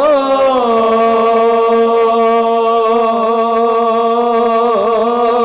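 A male naat reciter chanting a hamd into a microphone: his voice rises at the start, then holds one long, steady note for about five seconds, wavering briefly near the end.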